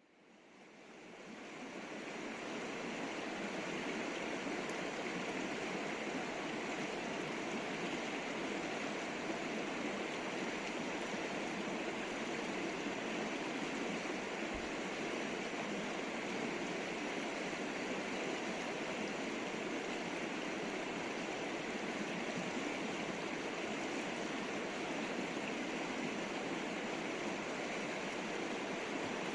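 River water flowing and rushing in a steady, unbroken stream, fading in over the first couple of seconds.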